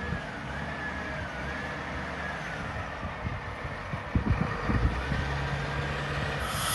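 Renault garbage truck's 11.1-litre diesel engine running as the truck drives across the yard and comes toward the microphone. From about four seconds in, gusts of wind buffet the microphone, and a short hiss comes near the end.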